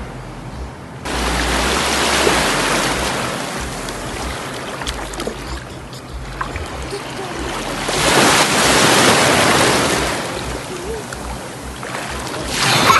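Shallow sea water washing and lapping, a steady rushing noise that starts abruptly about a second in and swells louder about eight seconds in.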